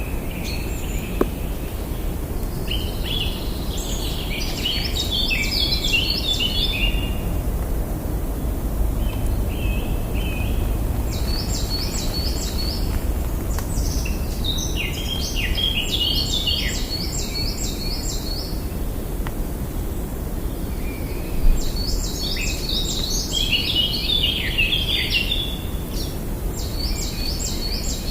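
Birds singing in repeated bouts of quick, high chattering notes, each bout lasting two to four seconds, over a steady low background rumble. There is a single short thump about three-quarters of the way through.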